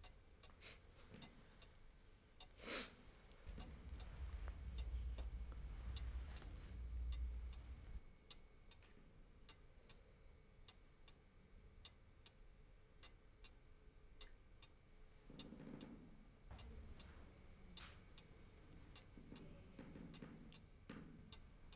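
A mantel clock ticking steadily in a quiet room. A few seconds in, a low rumble lasts about four seconds.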